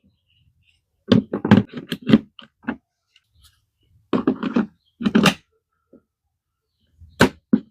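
Knocks and clatter from a cordless lawn mower and its parts being handled: a flurry of short knocks about a second in, another around four seconds in, and a single knock near the end.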